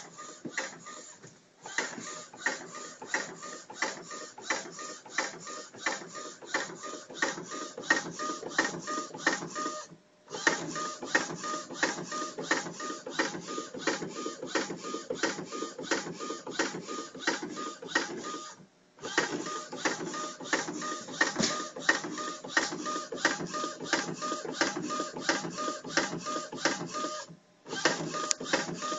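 Converted Epson WorkForce 30 inkjet printer printing onto a flatbed table, its print-head carriage shuttling with a rapid, even clicking and rattling. The runs stop briefly about every eight to nine seconds, then start again.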